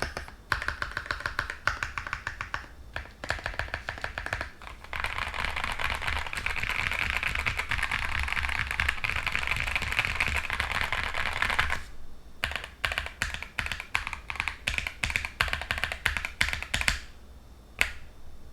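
Typing on a gummy O-ring-mounted, tape- and tissue-dampened custom mechanical keyboard with lubed linear switches (LY stems, nylon tops, UHMWPE bottoms, KTT springs). Keystrokes come one by one at first, then in a fast, nearly continuous run for about seven seconds, then one by one again, with a last single keystroke near the end.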